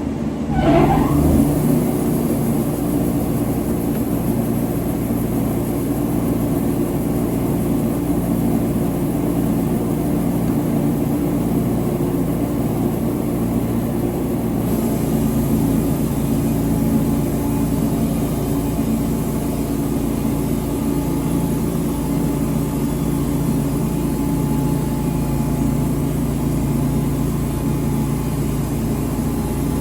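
An engine running steadily. A brief rising whine comes about a second in.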